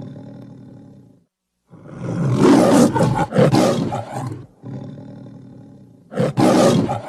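Edited roar sound effects in the manner of a big cat: a rumbling tail fades and cuts off, then a long loud roar with a lower rumble after it, and a second roar begins near the end.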